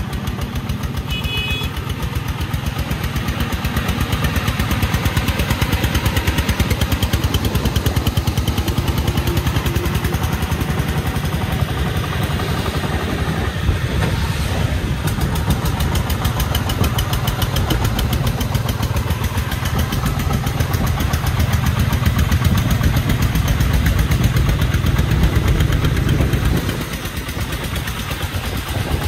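Single-cylinder diesel engine of a homemade three-wheeled công nông truck running under load as it drives, a rapid, even chugging. It eases off near the end.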